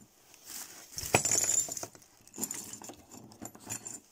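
Copper CPU heat-spreader lids clinking against one another as they are tipped into a plastic bag, with scattered sharp clinks. The loudest clink comes about a second in, alongside a brief rustle of the bag.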